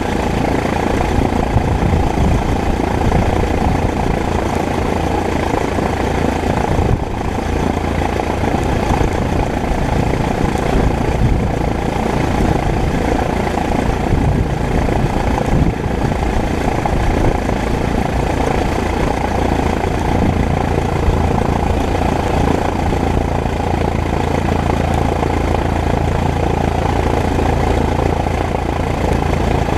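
Single-engine light airplane's piston engine idling steadily, with its propeller turning, heard close up from under the wing.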